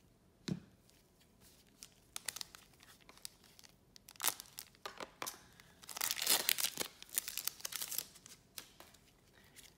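Foil trading-card pack being slit with a small box cutter and pulled open by gloved hands: the wrapper crinkles and tears in scattered crackles and clicks, densest and loudest about six to seven seconds in.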